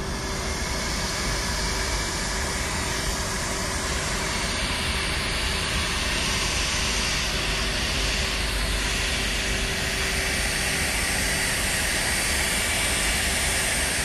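Hand-held hot-air blower running steadily: a constant rushing of air over a steady motor hum, blowing on a clear PVA water-soluble film wrap and shrinking it tight around a dishwasher tablet.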